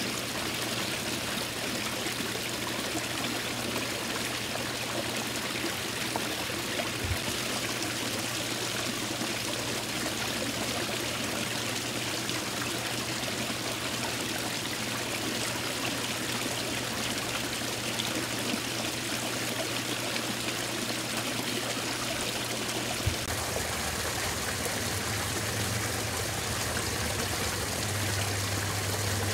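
Water from a small garden-pond waterfall splashing and trickling steadily over stacked stones into the pond.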